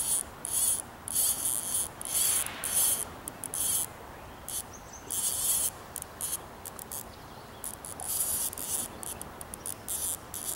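Fly reel's click drag ratcheting in repeated short bursts of high-pitched buzzing while a hooked fish is played and the rim is palmed.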